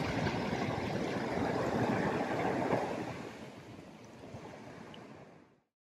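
Ocean surf washing against a rock ledge, a steady rush that fades down over the last few seconds and ends in silence shortly before the end.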